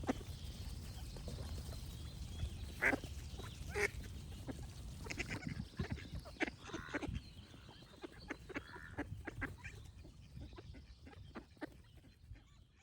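Ducks quacking: two loud quacks about three and four seconds in among many shorter, softer quacks, over a low steady rumble. The sound fades out toward the end.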